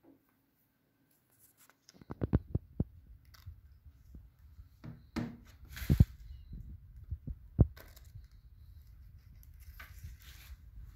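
A protective paper sheet being handled and peeled off a new MacBook Air's screen: after about two seconds of silence, a run of light knocks and thumps with bursts of paper crinkling and rustling, the loudest thump about halfway through.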